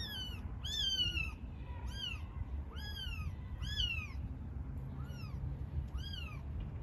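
Cat meowing: seven short, high-pitched calls, each rising and then falling, about one a second.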